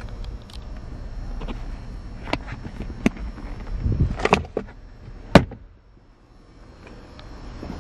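Owner's manual in its leather wallet being handled and put away: light rustling with a series of knocks and clicks, a quick cluster about four seconds in, and one sharp click about five and a half seconds in.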